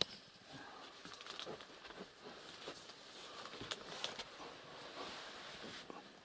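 Faint rustling with a few scattered light clicks and taps: handling and movement noise from a handheld camera being carried through a small dark room.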